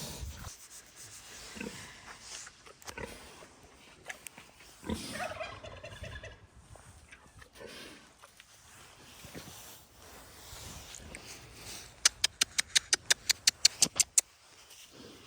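A domestic turkey gobbling about five seconds in, among quieter farmyard sounds. Near the end comes a fast run of sharp clicks, about seven a second for two seconds, the loudest sound.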